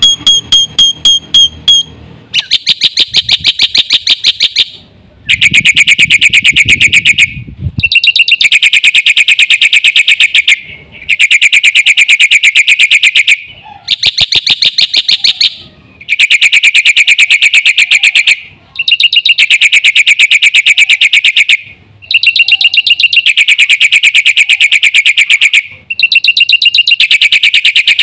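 Black-winged myna (jalak putih) singing loud, rapid rattling phrases, each about two to three seconds long, separated by short pauses.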